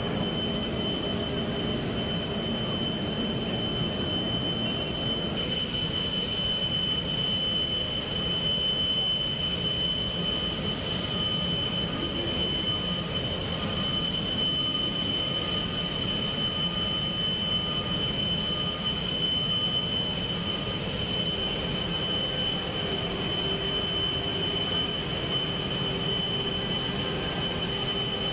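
Steady airfield machinery noise: a constant low drone with a high, unchanging whine on top. Through the middle a faint beep repeats a little more than once a second.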